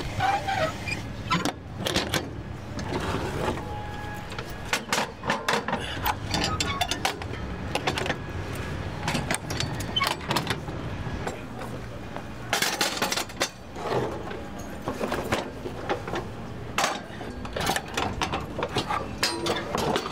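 Irregular clattering and knocking of kitchen work, with utensils and dishes handled over a steady low hum.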